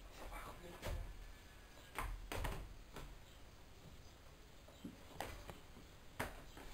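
Footsteps and shoe scuffs on a tiled floor: several separate knocks and scuffs, spaced about a second apart, over a quiet background.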